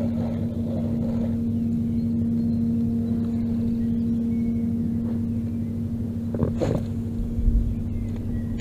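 A steady, even hum of a small motor running at constant speed.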